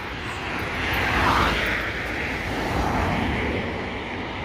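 A road vehicle passing, its tyre and engine noise swelling about a second in and easing off, over the low rumble of wind buffeting the microphone.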